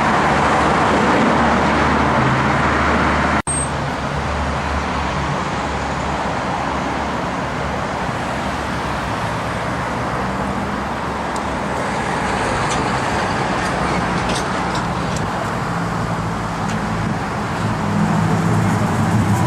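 Steady road noise of a car driving: tyre and wind noise over a low engine hum. The sound drops out for an instant about three and a half seconds in.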